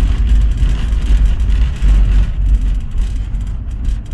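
Volkswagen Kombi motorhome driving on an unpaved road: a steady low rumble of engine and road noise heard from inside the cab.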